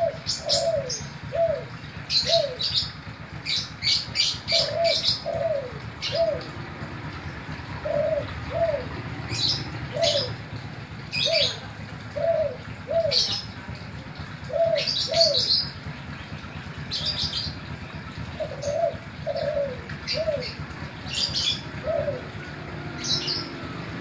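Caged spotted dove (tekukur/derkuku) cooing: short notes that drop in pitch, given in quick groups of two or three and repeated every couple of seconds. High short chirps come in between the coos, over a steady low hum.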